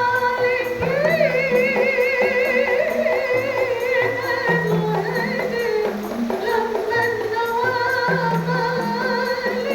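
Rebana ensemble playing: frame drums beat a steady pattern with deep booming strokes under a solo voice singing long, wavering notes with wide vibrato.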